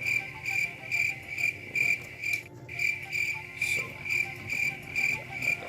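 Insect chirping in an even rhythm, about two chirps a second, with a short break partway through.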